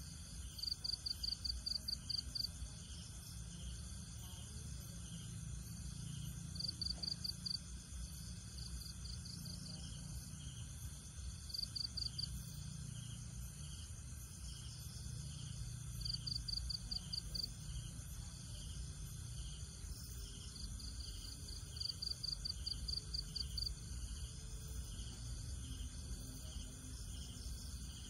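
Insects in a steady high-pitched drone, with one insect chirping in short trains of rapid pulses every four or five seconds.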